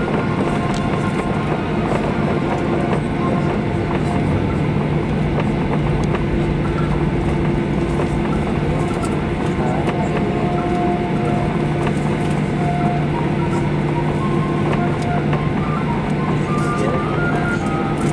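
Steady cabin noise of a Boeing 737-800 taxiing: the jet engines running at low power with a steady hum of several tones over the rumble of the airframe and wheels.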